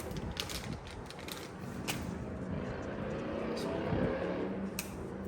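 A few sharp clicks and light handling noises from plastic trim parts and tape, over a steady low background rumble.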